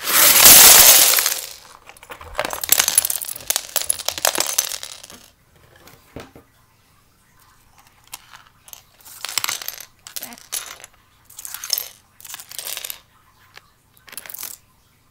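Plastic Lego bricks poured out onto a hard wooden floor in a loud clattering rush, then a second spell of rattling bricks a couple of seconds later. After that, scattered clicks and rattles as loose bricks are moved about.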